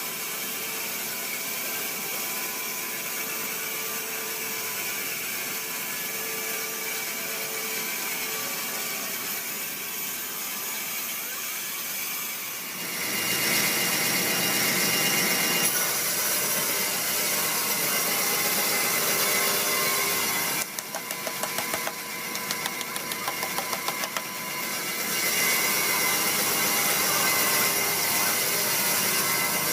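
Sawmill machinery running steadily while sawing a large teak log. It gets louder about a third of the way through, and later turns into a rapid pulsing for a few seconds before settling back to a steady run.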